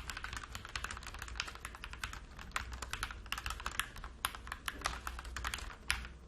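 Fast continuous typing on a MIIIW ART Series 68-key mechanical keyboard with stock Gateron Yellow Pro linear switches, the keys clacking several times a second. It stops with a last sharp keystroke just before the end.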